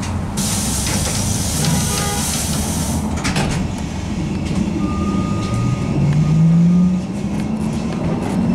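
ZiU-682 trolleybus releasing compressed air in a hiss lasting about two and a half seconds, then its traction motor whining and rising in pitch as the trolleybus gathers speed.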